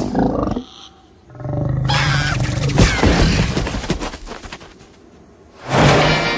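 Cartoon crocodile's roar, a sound effect that starts a little over a second in, lasts about two seconds and fades away. Near the end a loud rushing noise cuts in.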